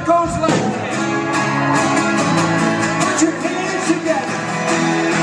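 Live soft-rock band playing: strummed acoustic guitars with electric guitar and drums keeping a steady beat.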